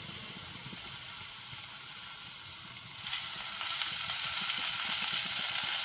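Chopped onion, green chillies, garlic and curry leaves with fennel, cumin and fenugreek seeds sizzling in a hot stainless steel saucepan. About three seconds in the sizzling grows louder and brighter as cooking oil is poured in from a bottle.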